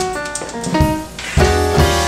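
Instrumental background music: a quick stepping melody over a beat, with a couple of heavy drum hits in the second half.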